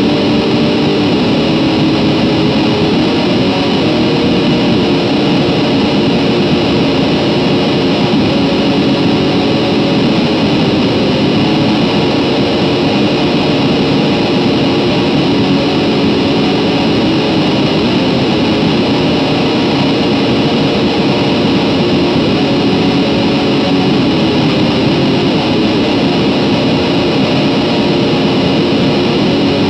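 Raw black metal recording: a dense, unbroken wall of heavily distorted electric guitar at a steady loud level.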